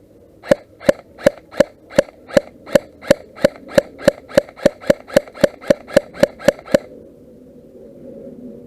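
Airsoft gun fired in a quick string of about twenty single shots, roughly three a second and speeding up slightly, each a sharp crack with a short ring; the shots stop suddenly near the end.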